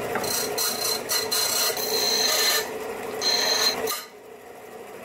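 Bench disc sander running with a steady motor hum while a small brass corner bracket is pressed against the sanding disc, making a harsh grinding rasp in several short bouts. The grinding stops about four seconds in and the motor runs on.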